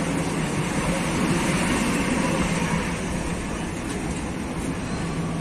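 Green Line Express passenger coaches rolling along the platform, a steady rumble of wheels on rail with a constant low hum underneath.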